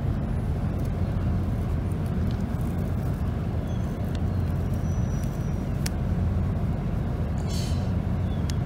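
Steady low outdoor rumble, with a few faint clicks and a brief rustle near the end.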